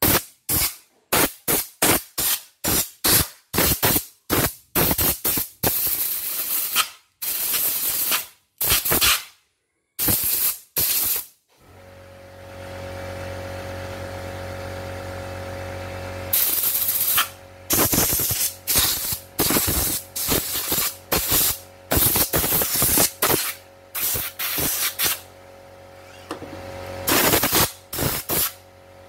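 Compressed-air blow gun fired in many short, loud blasts, blowing dirt out of an opened embroidery machine's carriage and frame. About twelve seconds in, a steady motor hum starts and keeps running under further bursts of air.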